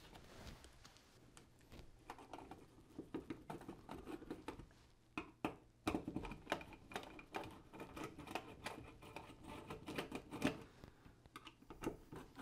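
Screwdriver backing out the small screws of a wall switch's cover plate and mounting strap: faint, irregular clicks and scrapes of metal against metal and plastic, busier from about two seconds in.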